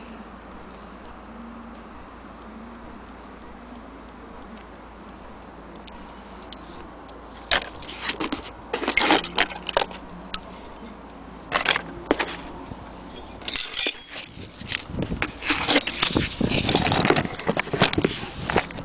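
Loose brass clock parts (gears, plates and a bell dome from a dismantled Hermle mantle clock movement) clinking and rattling against each other as they are handled. The clatter comes in irregular bursts, starting about a third of the way in.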